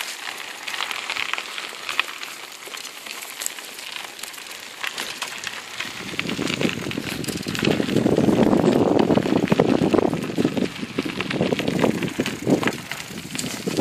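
Bicycle and trike tyres crunching and crackling over a gravel dirt path while riding. About six seconds in, a louder, uneven rumble joins them.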